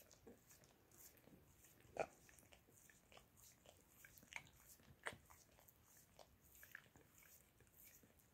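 A Shiba Inu licking and nibbling bare toes: faint, irregular wet licking and mouth clicks, with a sharper click about two seconds in and another about five seconds in.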